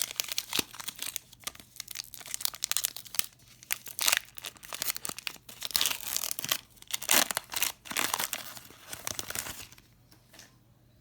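Foil wrapper of a Pokémon 151 booster pack being torn open and crinkled by hand: a long run of crackling tears and rustles that stops near the end.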